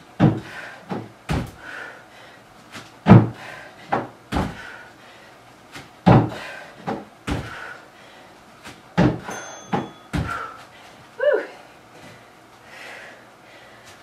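Feet in trainers landing with heavy thuds on a wooden plyo box and back down on the floor mat during repeated box jumps, about nine landings, some coming in quick pairs. Hard breathing is heard between the landings.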